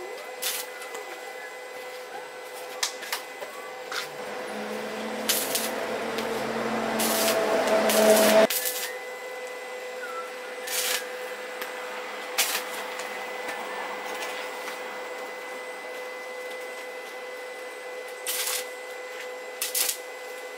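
Steady machine hum with scattered clicks and taps. A louder, rising noise builds for a few seconds and stops abruptly about eight seconds in.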